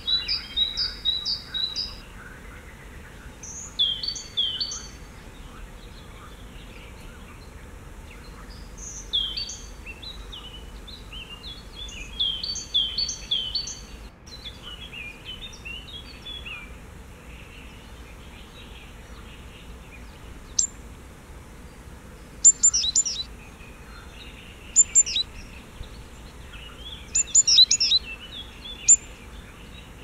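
Small songbirds singing in short bursts of quickly repeated high notes. After the middle these give way to clusters of sharp, very high chips.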